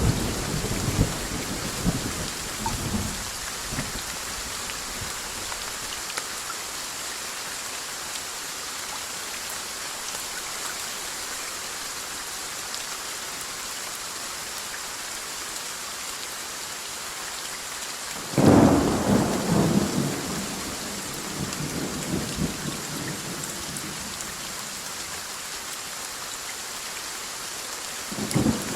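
Steady rain hissing throughout, with thunder: a rumble fading away over the first few seconds, a sudden loud clap about two-thirds of the way through that rolls on for several seconds, and another clap starting just before the end.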